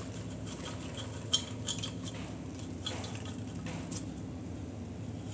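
Popped popcorn sliding and tumbling out of an aluminium pressure cooker into a bowl: soft rustling with a few light clicks and taps spread through, over a steady low hum.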